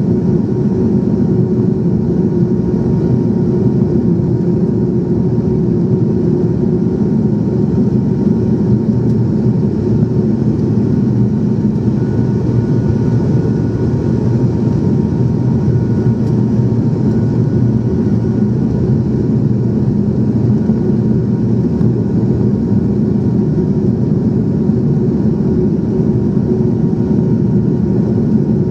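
Steady airliner engine and airflow noise heard inside the passenger cabin during the descent to land, a constant low rumble with a faint steady hum above it.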